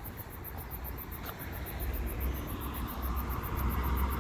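Crickets chirping in a high, rapid, even pulse, with the low rumble of passing traffic growing louder over the second half.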